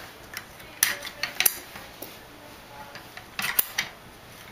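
Sharp metal clicks and clinks from a dog wheelchair's adjustable length-extender tube: a pen presses the snap button and the tube is slid along the frame, in clusters about a second in and again past three seconds.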